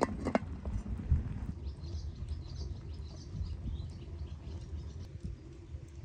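Outdoor ambience: small birds chirping faintly over a steady low rumble, with a couple of sharp knocks right at the start.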